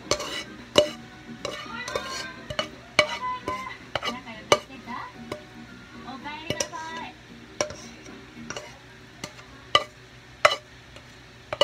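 A utensil scraping and knocking against a nonstick frying pan as a cooked mince and vegetable mixture is scraped out into a glass baking dish: irregular sharp clicks and scrapes, with two louder knocks near the end.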